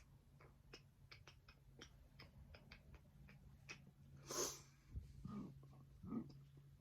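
Quiet mouth and throat sounds from a person working up a burp: small wet clicks, a breathy exhale or snort about four seconds in, then a few soft low gulps.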